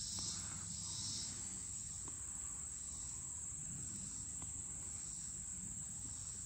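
Steady insect chorus: a continuous high drone, with a softer pulsing layer that swells about once a second.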